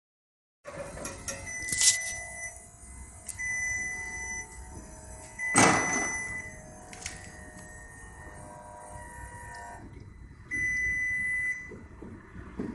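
A car's electronic warning chime beeps repeatedly at one high pitch, each beep about a second long, mixed with knocks and thuds from hands working under the dashboard. The loudest knock comes about five and a half seconds in.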